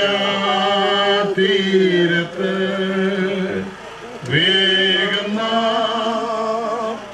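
A man singing a slow hymn in long, drawn-out notes, with a few short breaths between phrases.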